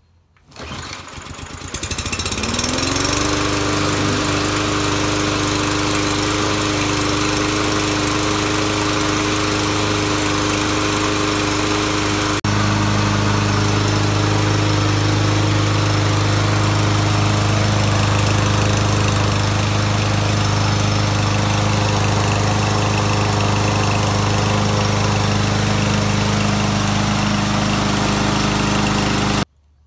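Briggs & Stratton engine of a new Troy-Bilt TB110 push mower starting on the first pull, its first start with fresh oil and fuel. It revs up over the first couple of seconds and settles into a steady run. About twelve seconds in the sound turns a little deeper and louder, and it cuts off suddenly near the end.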